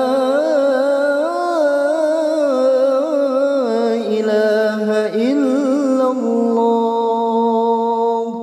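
Male muezzin singing the closing phrase of the adhan, "lā ilāha illā-llāh", into a microphone, in ornamented melodic runs that settle into a long held final note near the end.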